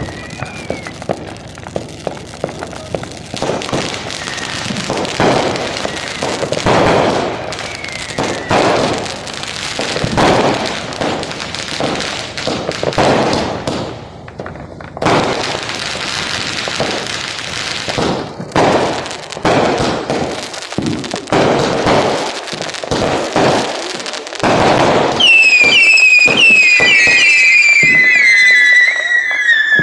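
Fireworks going off in a continuous run of bangs and crackles. Near the end, several loud whistles slide down in pitch together.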